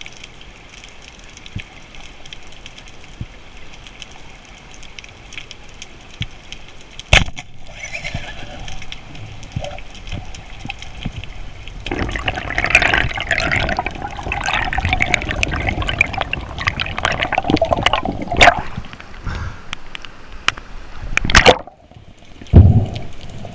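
Water heard underwater through an action camera's housing: a steady crackle with scattered sharp clicks, and a loud spell of bubbling and gurgling from about twelve to eighteen seconds in.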